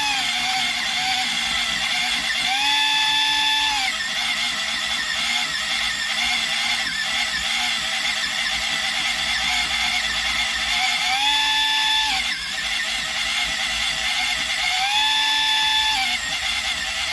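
Small electric pencil sharpener's motor whining as a coloured pencil is ground. The pitch sags while the pencil is pressed in and the motor is loaded, and rises briefly about three times when the pressure eases. The motor is weak under load.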